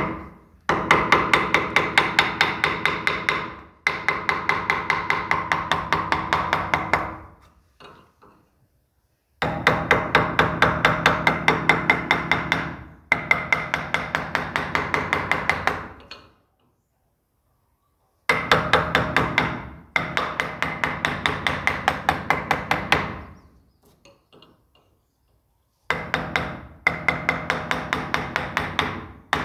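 A steel woodcarving chisel driven by fast hammer taps as it cuts petal grooves into a carved wooden flower, about four taps a second with a ringing tone. The taps come in four runs of several seconds each, with short pauses between.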